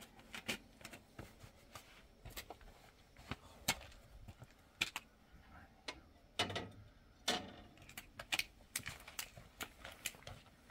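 Footsteps on gravel and dirt: uneven crunching steps, the louder ones about a second apart, with smaller scuffs and clicks between.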